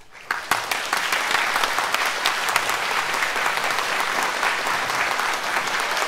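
Audience applauding: dense clapping that breaks out suddenly just after the start and holds steady.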